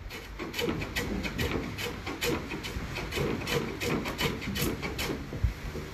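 Low-angle block plane shaving the plywood edge of a canoe stem in short, quick strokes, about three a second, each a brief rasping cut as it bevels the edge.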